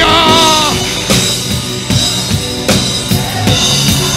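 Worship band music with a drum kit keeping a steady beat of kick and snare over sustained low notes. A held sung note slides down and fades in the first second.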